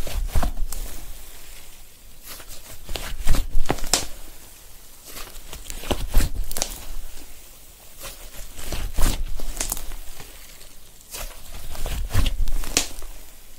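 Cloud slime being squeezed and kneaded by hand, giving clusters of crackling pops and squelches in bursts about every three seconds.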